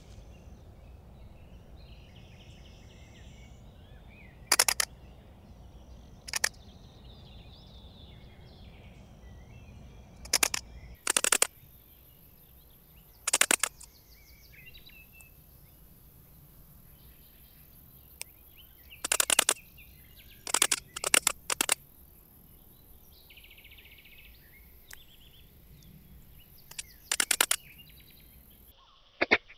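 Migratory locust stridulating: short, raspy chirps, each a quick run of pulses, about ten of them scattered through, some single and some in quick groups of two or three.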